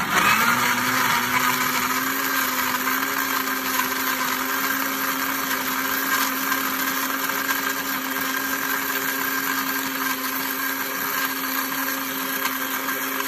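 Electric countertop blender motor starting abruptly on its third speed and running steadily, with its hum climbing to pitch within the first half second. It is blending ice cubes and mixed berries into milk.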